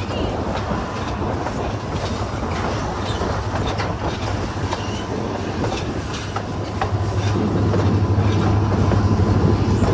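Train rolling on the track: wheels clicking over rail joints above a steady low rumble, which grows louder about seven seconds in.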